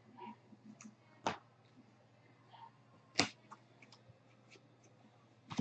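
Trading cards being handled at a table: two sharp clicks, a little over a second in and about two seconds later, with fainter ticks and rustles between.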